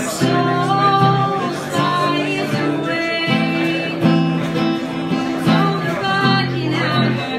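Acoustic guitar strummed in steady chords while a solo voice sings a song.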